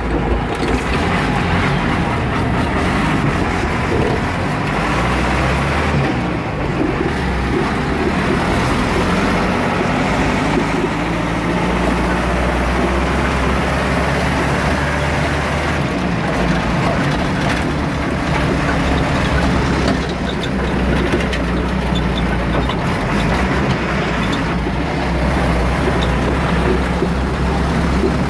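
Kia truck's engine running as it is driven, heard from inside the cab: a loud, steady drone whose pitch shifts several times.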